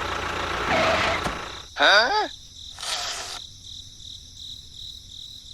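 A small engine running, cutting off about a second and a half in, then a short rising "Huh?" and a brief hiss. Crickets chirp steadily in the background.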